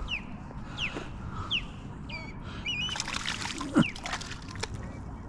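A small trout splashing at the surface as it is scooped into a landing net, with a sharp knock from the net nearly four seconds in as the loudest moment. Through the first three seconds a bird gives short falling chirps, about two a second.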